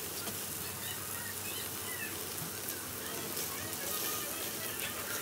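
Carne asada steaks and green onions sizzling over a charcoal kettle grill as a steady hiss, with faint voices in the background.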